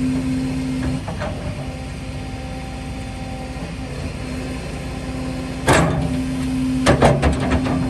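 Doosan DX225LC-5 excavator's diesel engine running with a steady low drone, broken by two loud, rough surges of noise, about six and seven seconds in.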